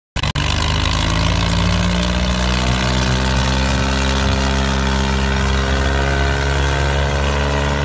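Diesel engines of a Swaraj 855 and a Mahindra 585 tractor running hard and steadily, pulling against each other in a tractor tug-of-war with the engines under heavy load.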